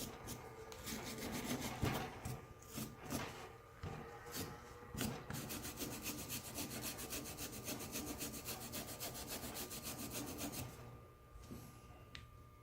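Brush scrubbing the steel machined surface of a machinist jack to lift remaining softened rust. A few irregular strokes give way, about five seconds in, to quick, even back-and-forth scrubbing that stops near the end.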